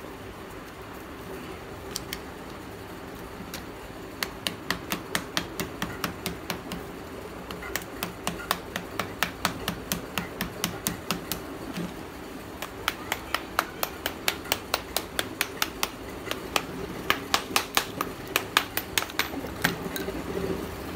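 Small hammer tapping a lump of black roasted multani mitti (fuller's earth clay) to split off its layers: light, sharp clicks in quick runs of about four strikes a second, starting a few seconds in and pausing now and then.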